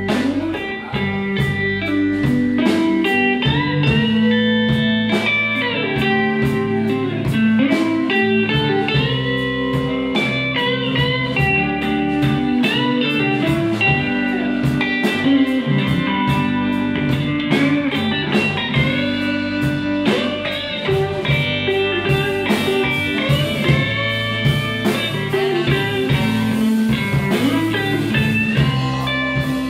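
Live blues band playing a slow soul-blues number: an electric guitar solos with bent notes over bass and drums, with cymbal strokes keeping the beat.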